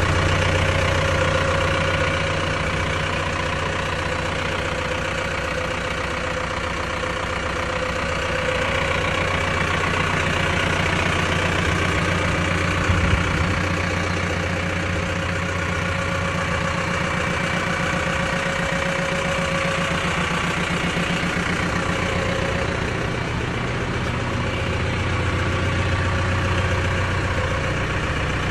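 Mahindra Arjun Novo 605 DI-PS tractor's diesel engine idling steadily, with a single short knock about halfway through.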